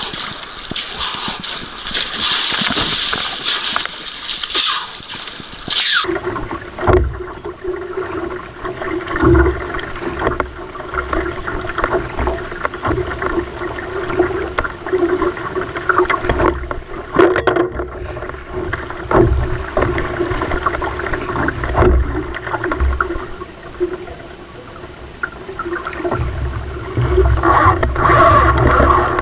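Sea kayak being paddled: water splashing and sloshing around the hull with paddle strokes and wind buffeting the microphone. After about six seconds a steady hum runs under the water sounds. The splashing gets louder near the end.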